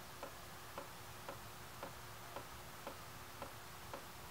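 Faint, steady ticking, about two ticks a second.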